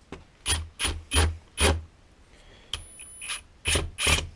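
Cordless driver run in about eight short trigger bursts, with a pause in the middle, backing out a screw.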